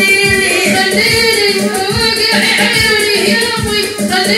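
A woman's voice singing into a microphone over a backing track with a steady, even drum beat and a sustained accompanying note.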